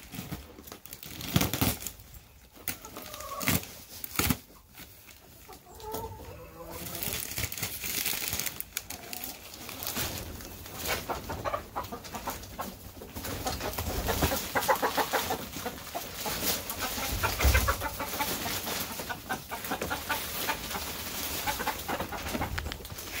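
Chickens clucking and squawking while loose wood shavings are tossed and rustle across the coop floor, with sharp knocks in the first few seconds.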